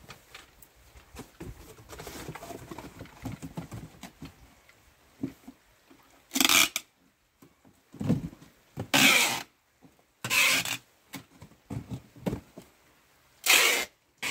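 Packing tape being pulled off the roll to seal a cardboard box, in four loud screeches of about half a second to a second each, starting about six seconds in. Before them, softer rustling and knocking of the cardboard box being folded.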